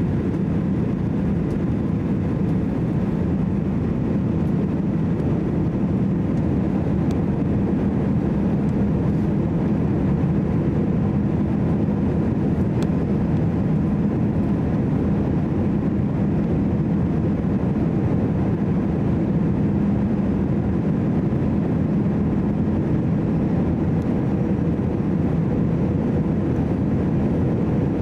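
Steady cabin noise inside an Airbus A320-200 on final approach: a low, even drone of engines and airflow with a faint steady hum.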